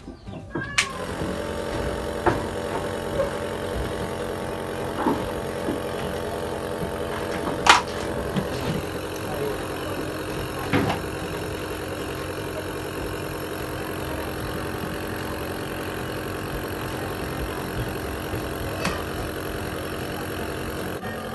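Omron compressor nebulizer switched on about a second in, then running with a steady motor hum while it nebulizes medicine. A few sharp knocks sound over it, the loudest about eight seconds in.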